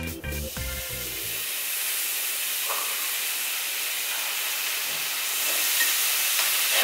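Raw pork belly slices sizzling on a hot griddle as they are laid down with tongs: a steady hiss. Background music cuts off about a second and a half in.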